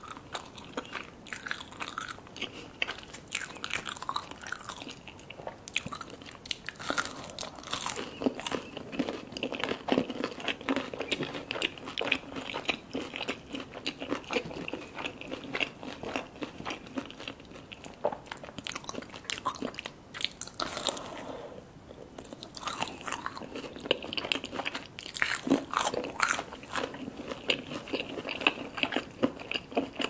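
Biting and chewing a breaded, fried mozzarella stick: the crisp crumb coating crunching and crackling in dense, irregular bites with wet mouth sounds, and a brief lull about two-thirds of the way through.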